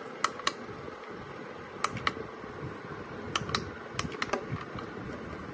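Round push-button switch on a plastic desk lamp's base clicking as it is pressed repeatedly: about nine sharp clicks, mostly in quick pairs.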